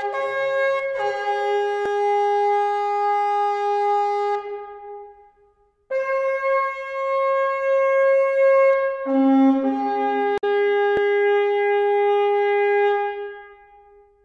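Music of long, reedy wind-instrument notes held two or three at a time, changing pitch every few seconds. It fades out after about four seconds, comes back a second or so later, and fades away again near the end.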